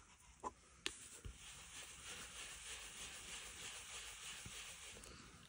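Faint, steady rubbing of a dome-shaped ink blending brush swirled over cardstock, with a couple of light taps near the start as it goes to the ink pad.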